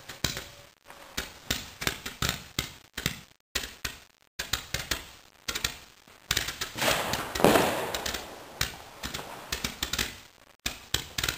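New Year's Eve fireworks: rockets and firecrackers popping and banging in quick, irregular succession, with a louder bang about seven and a half seconds in that rumbles away.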